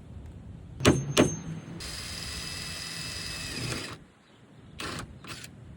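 Power drill running steadily for about two seconds, drilling out a leaking rivet in the jon boat's hull. Two sharp clicks come before it, and a few softer clicks near the end.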